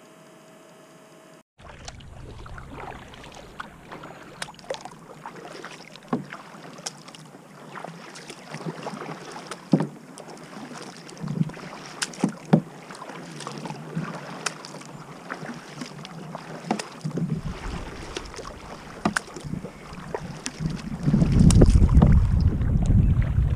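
Double-bladed kayak paddle dipping and pulling through calm water: irregular splashes, drips and light knocks of the blades. Wind buffets the microphone with a low rumble, growing loud over the last few seconds.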